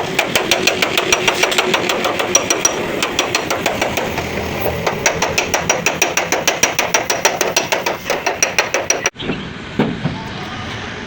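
Rapid, even hammer strokes on sheet metal, about seven a second, consistent with panel-beating dents out of a car body after an accident. They stop abruptly about nine seconds in.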